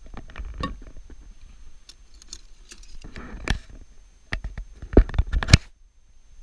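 Handling noise: a run of clicks, taps and short rustles, with a cluster of sharp knocks about five seconds in that stops abruptly.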